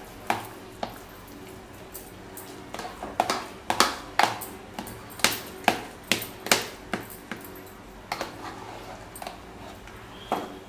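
A metal ladle stirring and mashing thick ragi sangati dough in a metal pot: irregular knocks and scrapes of the ladle against the pot, busiest in the middle and sparser near the end, over a faint steady low hum.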